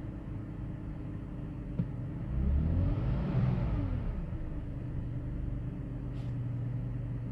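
2005 BMW 530i's straight-six engine idling, with a short blip of the throttle that rises and falls about two to four seconds in.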